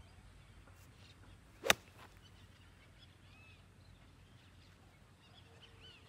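Full swing of a 60-degree wedge: a brief swoosh, then one sharp crack as the clubface strikes the golf ball, a little under two seconds in. Faint bird chirps follow.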